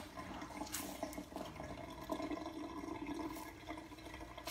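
Faint water running and splashing in a kitchen sink as a makeup sponge is rinsed and squeezed out under the water.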